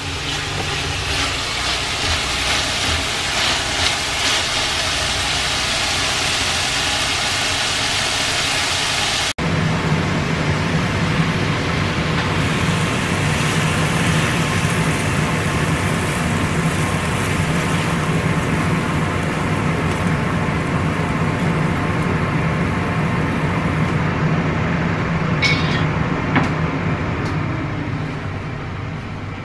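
Sliced bitter melon sizzling in a stainless steel frying pan as it is stirred with chopsticks. About nine seconds in, this cuts to a steady low mechanical hum.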